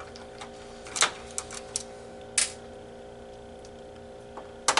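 A few sharp clicks and taps of a screwdriver and small parts being handled on a partly disassembled Xbox 360 console, over a steady low hum.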